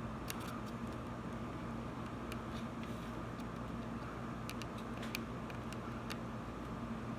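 Scattered small clicks and ticks of thin feeder wire being worked against model railroad track rails by hand, over a steady electrical room hum.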